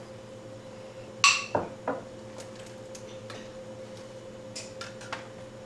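Hot mason jars of tomatoes being set upright on a metal sheet pan with light glass-and-metal clinks. About a second in comes one sharp ping: a canning lid sealing as the jar cools.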